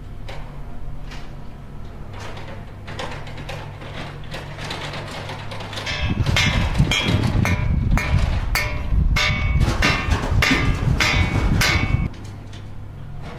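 A steady low machine hum with occasional knocks; about six seconds in, a much louder rumble full of rapid clattering knocks and metallic clanks starts, then cuts off suddenly about six seconds later.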